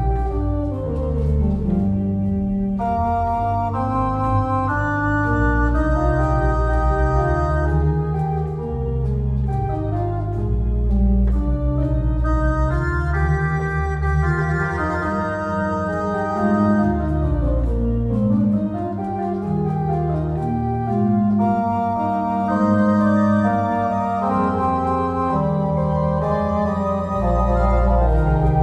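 J.W. Walker & Sons pipe organ playing, played with the pedals and the manuals at once: sustained chords and moving inner lines over a deep pedal bass line.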